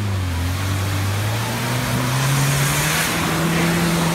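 UAZ 469 off-roader's engine revving up steadily and then holding at high revs as the vehicle pulls out of deep mud. From about halfway it is joined by a rising rush from the spinning wheels churning mud.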